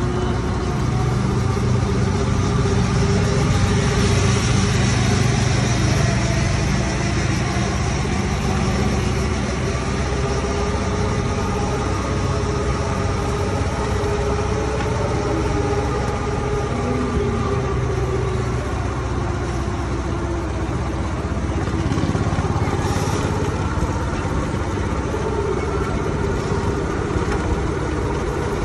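Amusement-park go-kart's small engine running at a fairly steady pitch while the kart drives round the track, with the hum of its tyres on the asphalt beneath.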